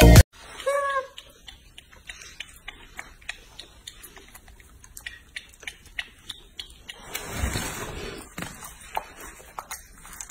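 A young macaque gives one short, squeaky call that rises and falls about half a second in. Then soft scattered clicks and mouth smacks follow as the monkeys handle and eat a banana, with a brief rustle about three-quarters of the way through.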